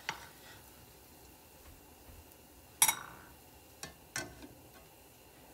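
A few sharp clicks and clinks of a nylon spatula against a nonstick frying pan, the loudest about three seconds in and two more close together soon after, over a faint low sizzle of flatbread dough frying in oil.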